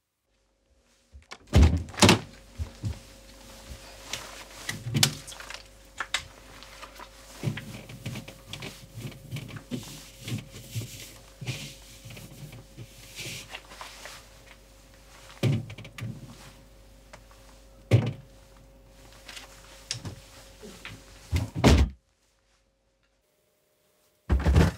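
Refrigerator door opened about a second in, then items knocking and thunking on the shelves, with a steady hum while the door is open. The door shuts near the end, cutting the sound off.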